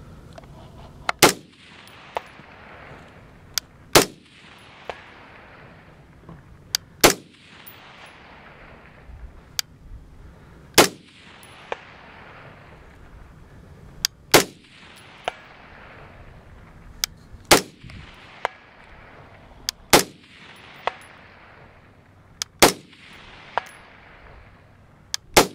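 LaRue PredatAR rifle with a muzzle brake fired nine times in slow, deliberate shots about three seconds apart. Each shot is followed about a second later by a faint clang of the bullet hitting a steel silhouette target far downrange.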